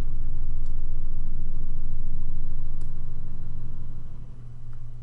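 A loud low rumble with a steady hum, swelling and then fading away about four seconds in.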